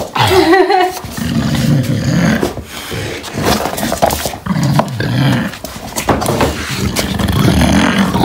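English bulldog grunting and growling in repeated low, rumbling bouts while chewing and mouthing his ball.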